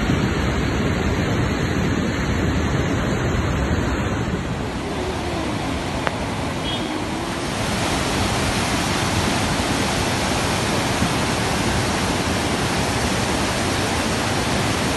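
Swollen, muddy river in flood rushing over broken concrete: a steady roar of turbulent floodwater.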